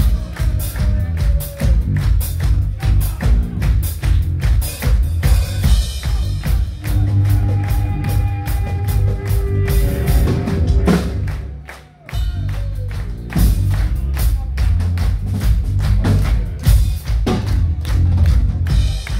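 Heavy rock band playing live without vocals: distorted electric guitars, bass and drums. The band drops out for a moment about two-thirds of the way through, then comes back in together.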